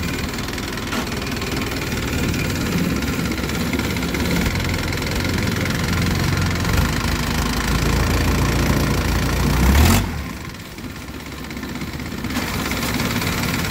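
Longtail boat's stern-mounted car engine with short open exhaust pipes running loud and under power, its low rumble building to a peak about ten seconds in. The engine note then drops off sharply and builds back up over the next couple of seconds.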